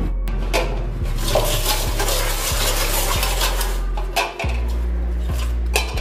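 Aluminium cooking pot and lid clattering and clinking as they are handled, with a sharp clank near the end, over background music with a steady bass.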